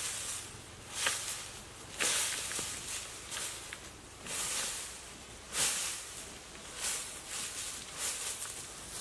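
Dry, loose earth being scraped up and flung by hand, a gritty swish of scattering soil about once a second.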